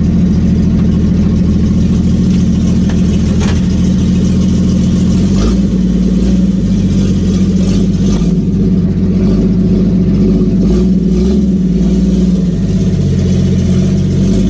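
Old Willys truck engine running steadily, heard from inside the cab. Its exhaust goes through a header with no muffler. The engine note shifts slightly about five and a half seconds in.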